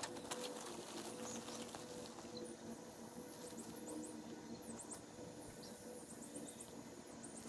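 Faint rustling and scraping of tent fabric being folded and rolled up for packing.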